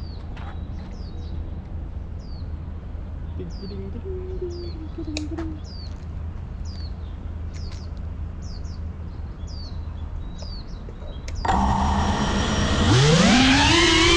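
A bird repeatedly giving short, downward-sliding chirps over a low background rumble. About eleven seconds in, the FPV drone's electric motors start up with a whine that rises in pitch as the throttle comes up for takeoff.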